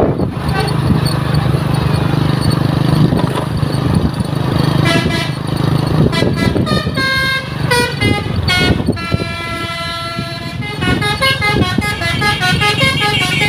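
A bus's multi-tone 'telolet' musical horn, on an ALS bus, played over the running bus engine. About five seconds in it sounds a series of short notes at changing pitches, and near the end it plays a quick repeating melody.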